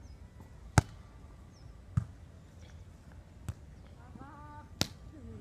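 A volleyball struck by players' hands four times, sharp smacks about a second apart, the first the loudest. A short shouted call comes between the last two hits.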